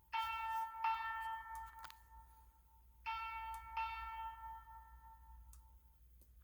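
Fire alarm speaker sounding an electronic chime: two strikes of the same bell-like tone, then the pair again about three seconds later, each strike ringing out and fading.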